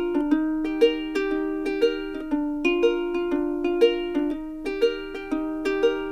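Background music: a light melody of short, quickly decaying pitched notes at a steady beat, about three notes a second.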